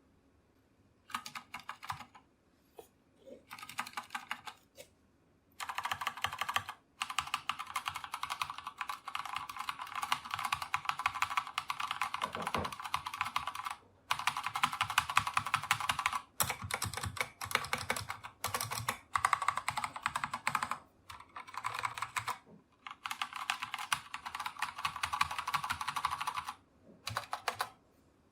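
Fast typing on a GK61 mechanical keyboard with Kailh Speed Pink switches and SA-profile keycaps, a dense clatter of keystrokes in runs of several seconds broken by short pauses.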